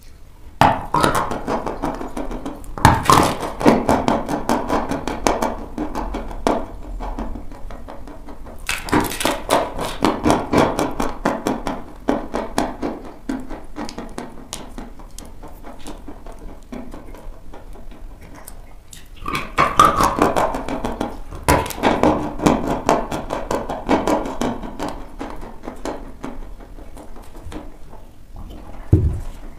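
Close-miked chewing of dry chalk: dense, crisp crunching in three long bouts with quieter stretches between them, and a single thump near the end.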